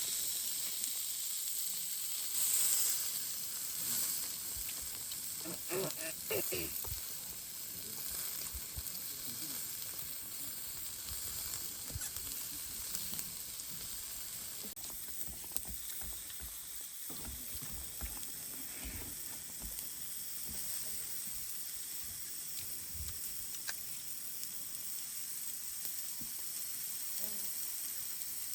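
Meat sizzling on a grill: a steady frying hiss with faint scattered crackles.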